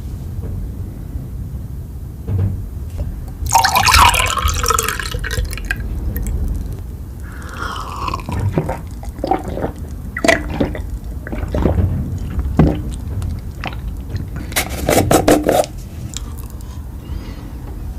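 Close-miked eating sounds: wet, liquid mouth noises and scattered sharp clicks. Two dense crackling bursts stand out, one about four seconds in and one near the end, with a short squeaky falling slurp in between.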